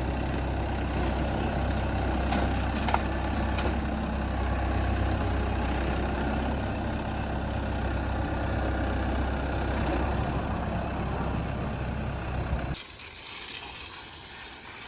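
A heavy engine runs steadily at a low, even pitch. About thirteen seconds in, the engine sound cuts off suddenly and a steady hiss of water spraying from a hose takes over.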